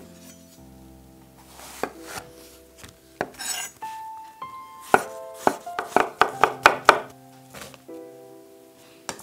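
Chef's knife cutting chestnut mushrooms on a wooden cutting board: a few single cuts, then a quick run of chops in the middle. Soft background music with sustained notes plays underneath.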